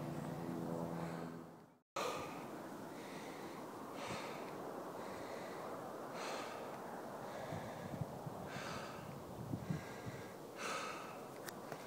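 A trail runner breathing hard, with a heavy breath about every two seconds over steady wind and handling noise on the camera's microphone. A short steady low tone at the start breaks off abruptly about two seconds in.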